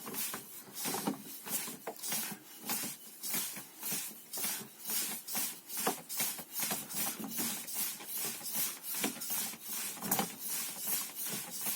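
Quick rhythmic swishing and slapping of hands, forearms and sleeves in a Wing Chun partner hand drill, about three to four strokes a second, stopping abruptly at the end.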